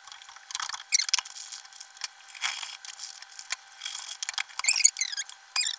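Plastic storage canister and packaging being handled on a stone countertop: scattered clicks and rustling, with short high squeaks of plastic rubbing on plastic about four and a half seconds in.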